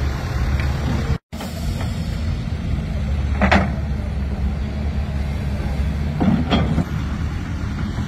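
A steady low mechanical drone, engine-like, with two short clatters about three and a half and six and a half seconds in; the sound cuts out for a split second a little over a second in.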